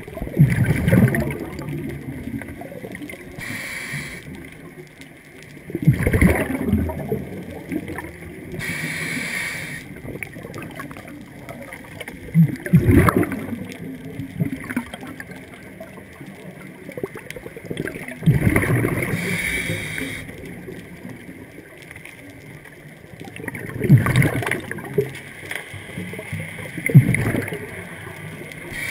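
Scuba diver breathing through a regulator underwater: loud bubbling exhalations about every six seconds, six in all, with the fainter hiss of inhalations between them.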